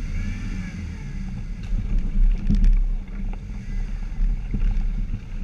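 Jeep engine running at low speed on a muddy trail, heard as a muffled low rumble through the GoPro's housing, with a few knocks from the vehicle along the way.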